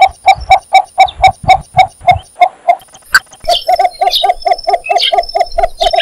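Cinnamon bittern calling: a long series of short, evenly spaced low notes, about four a second, with a brief pause about halfway through before the series resumes a little faster.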